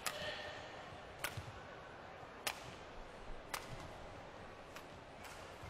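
Badminton rally: rackets striking the shuttlecock back and forth, four sharp hits about every second and a quarter, then a fainter one near the end.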